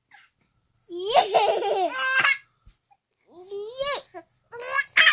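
A baby laughing in three bursts, the first and longest starting about a second in.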